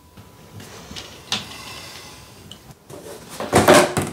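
Vinyl flooring planks being handled and slid over the floor: low scraping and rubbing, a sharp click about a second in, and a louder clatter near the end.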